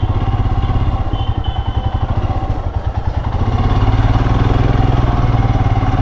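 Royal Enfield Himalayan BS6's 411 cc single-cylinder engine running at low speed under the rider, a steady low rumble. It eases off briefly about halfway through, then pulls again.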